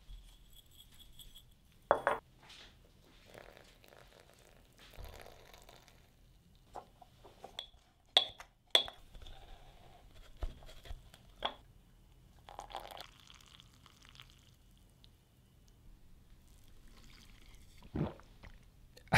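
Metal bombilla straw and a glazed mate gourd being handled: a series of sharp clinks as the straw knocks against the gourd's rim, with short soft rustles and crunches of dry yerba mate leaves in between.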